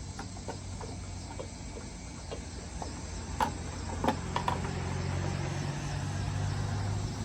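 A few light clicks and knocks of parts being handled and fitted back together, over a steady low hum that grows slightly louder about halfway through.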